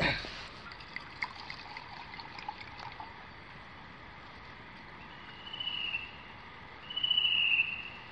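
A drink poured from a thermos into a metal cup: a faint trickle with a few light clinks over the first few seconds, against a steady background hiss. Near the end come two short high-pitched trills, the second the louder.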